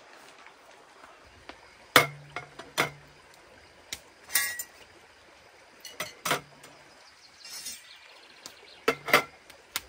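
A series of sharp clinks and knocks of hard objects, about ten in all, several in quick pairs or threes, one near the middle ringing briefly like metal or glass.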